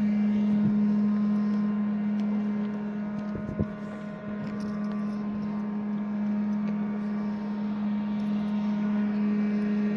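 A steady machine hum, one strong low tone with fainter higher tones over it, with a single short knock about three and a half seconds in.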